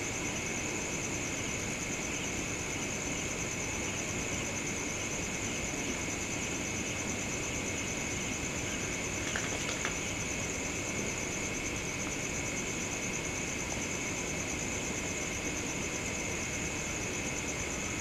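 Steady chorus of crickets chirring in a constant high drone, over a low, even background rumble.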